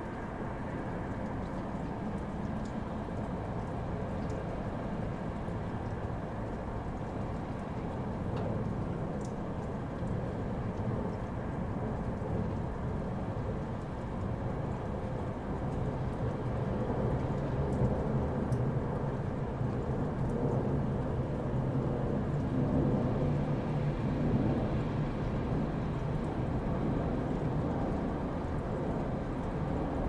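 A steady sleep-noise track: an even, deep hiss with most of its weight in the low end and little treble. It swells slightly in loudness about halfway through.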